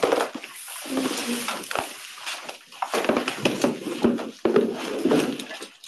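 Cloth rubbing across a chalkboard as it is wiped clean, with knocks and clatter mixed in.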